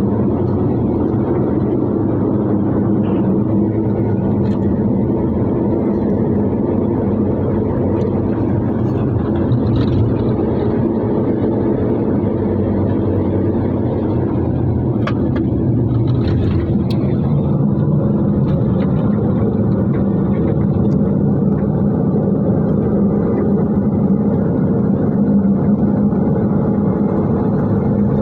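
A road vehicle's engine running steadily under way, its steady hum mixed with road noise from the moving vehicle.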